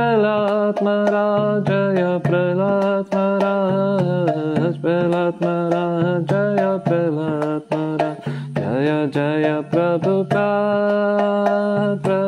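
A man singing a devotional prayer chant, one solo voice in long melodic phrases, over a steady drone of low held notes that shift a few times.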